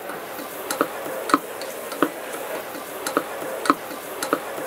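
Wooden spoon knocking against the side of a stainless steel saucepan while stirring, in sharp light knocks about every two-thirds of a second.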